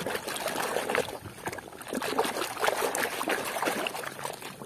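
Muddy, foamy water sloshing and splashing in a plastic tub as a hand swishes and scrubs a toy in it, in irregular splashes.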